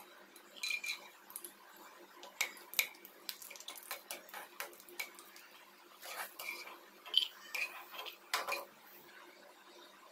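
Steel spatula clinking and scraping against a non-stick wok as cashew pieces are stirred in ghee, in irregular taps and scrapes.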